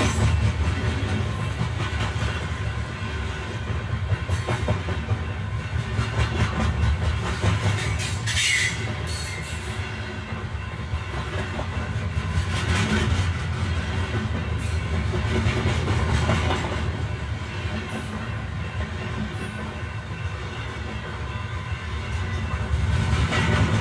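Old narrow-gauge passenger train coach rolling along the track, heard from inside the car: a steady rumble with wheels clattering over the rail joints.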